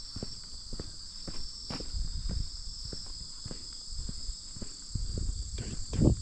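A steady, high-pitched chorus of crickets, with irregular footsteps and rustling low underneath and a louder knock just before the end.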